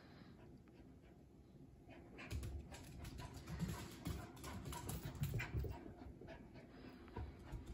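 A small dog's claws clicking and its paws thudding on a hardwood floor as it runs about, a rapid, uneven patter that starts about two seconds in and eases off near the end.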